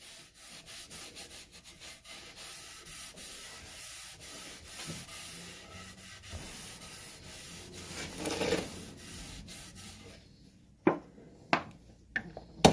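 Rubbing Danish oil into a wooden axe handle: a steady scratchy rubbing along the wood for about ten seconds. It then stops, and a few sharp knocks follow near the end.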